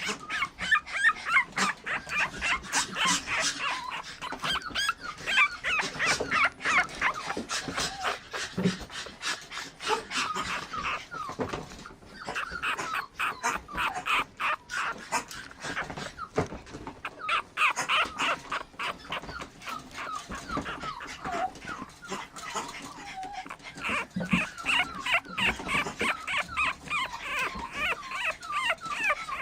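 Toy poodle puppy whimpering and yipping in many short, high-pitched squeaks in quick succession, with frequent short clicks and taps among them.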